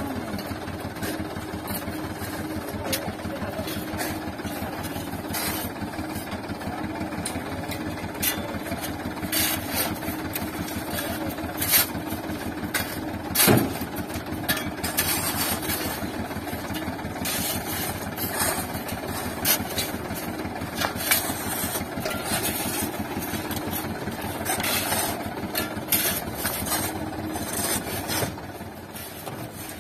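Mitsubishi Canter dump truck's diesel engine idling steadily, with shovels scraping and striking sand and gravel around its rear wheel. Several sharp knocks, the loudest about halfway through.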